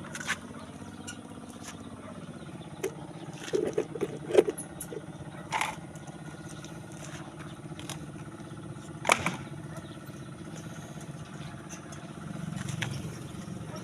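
Steady engine hum with scattered sharp metal clicks and knocks from steel rebar stirrups being handled and fitted onto a column's reinforcing cage: a small cluster around four seconds in, the loudest knock about nine seconds in.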